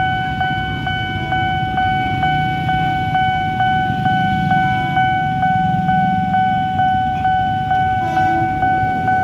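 Railway level-crossing warning alarm sounding steadily, a repeated electronic bell tone about two and a half times a second, warning of an approaching train. Under it, motorbikes and cars idle at the crossing.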